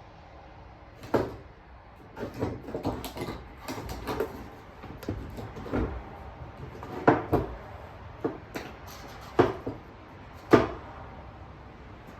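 Hand tools knocking, tapping and scraping against an old wooden window sash as the glass is worked out of it: an irregular run of sharp clicks and wooden knocks, the loudest three in the second half.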